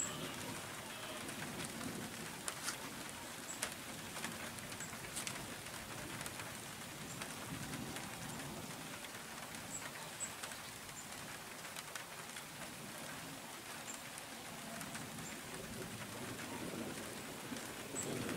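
Steady rain falling, an even hiss with the odd sharper tap of a single drop.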